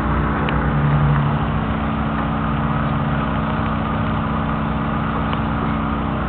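P25 mortar pump's engine running at a steady pace while it pumps grout through the hose to a grout gun.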